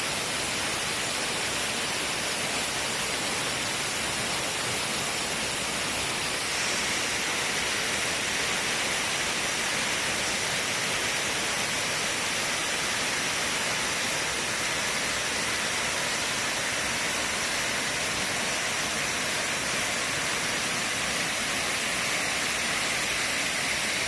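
Multi-tiered waterfall: a steady rush of water falling over rock ledges, a little louder and brighter from about six seconds in.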